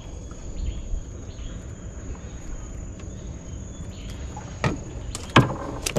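Night insects, crickets, chirring in one steady high-pitched tone over a low rumbling background. A few sharp clicks and knocks come near the end.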